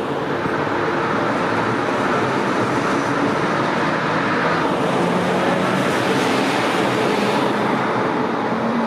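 S-Bahn train of x-Wagen coaches rolling past, with a steady noise of wheels on rail. Its DB class 143 electric locomotive, pushing at the rear, comes by near the end with a low hum rising in pitch.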